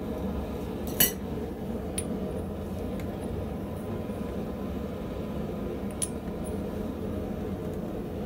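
Steel die pieces clinking against the steel guide of a blacksmith's guillotine tool as they are set in and handled: a sharp clink about a second in, and lighter ones near two and six seconds, over a steady hum.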